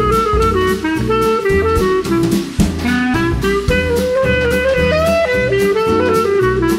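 Background music: upbeat jazz with saxophone and drum kit.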